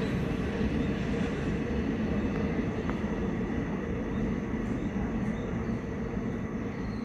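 Train running along the track: a steady low rumble that eases slightly toward the end.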